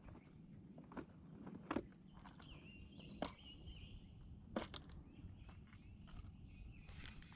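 A few scattered knocks and clicks of people moving and handling gear in a fishing boat, over a quiet outdoor background with faint high bird chirps and a wavering whistle-like call in the middle.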